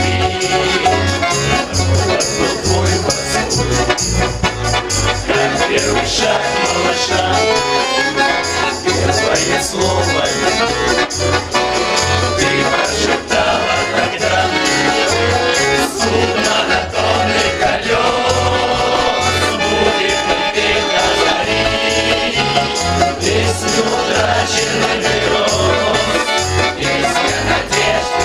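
Music: a song's instrumental passage with a steady, regular bass beat.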